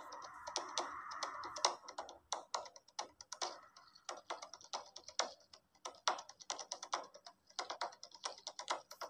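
Faint computer keyboard typing: irregular key clicks, several a second, with a steady faint hiss under them for the first two seconds.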